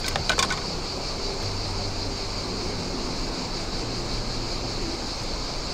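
Steady outdoor wind and water noise, with a constant high-pitched hiss and a low rumble, and a quick cluster of sharp clicks right at the start.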